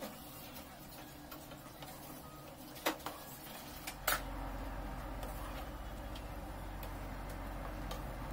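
Wooden spatula tapping and scraping in a non-stick frying pan while onions, garlic and spices are stirred in oil, with scattered light ticks and two sharper knocks about three and four seconds in. A low steady hum comes in about halfway through.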